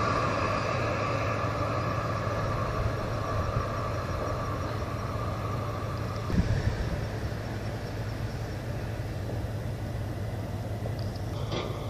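Steady low mechanical rumble with a hum, with a brief thump about halfway through and a short sharp sound near the end.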